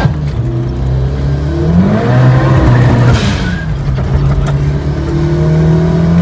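Turbocharged VAZ-2108 engine heard from inside the cabin, rising in pitch as the car accelerates. Near three seconds in there is a break with a short hiss at a gear change, then it climbs again.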